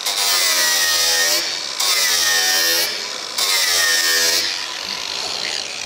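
Cordless power cutting tool running in three bursts as it cuts through a car's roof headliner, its pitch sagging and recovering in each burst as it bites.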